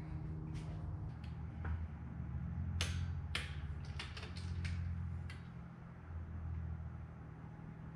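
Metal hand tools clicking and knocking as a wrench is worked on a fastener of an aircraft engine cylinder, a few separate sharp clicks about halfway through, over a steady low hum.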